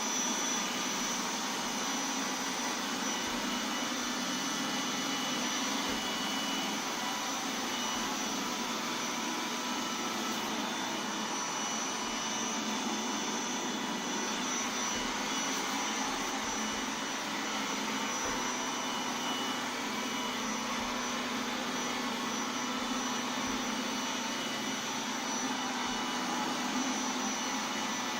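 iRobot Roomba 980 robot vacuum running steadily, its suction motor and brushes giving an even whirring noise with a thin, high steady whine over it.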